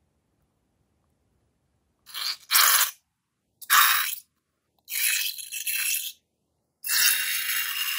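Slime being squeezed out of a balloon through a plastic straw nozzle in a rough, hissing sputter. It comes in three short spurts, then runs on continuously from near the end.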